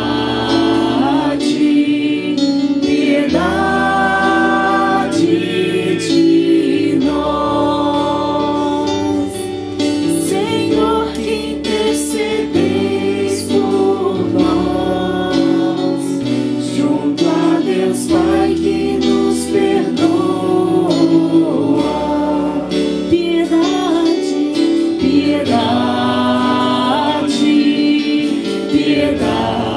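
Church choir singing a hymn, with instrumental accompaniment holding long bass notes that change every second or two.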